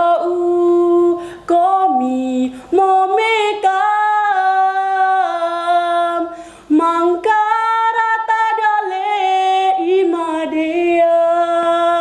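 A young woman singing solo in Indonesian regional folk style, holding long sustained notes that step and slide between pitches, with a few short breaks for breath.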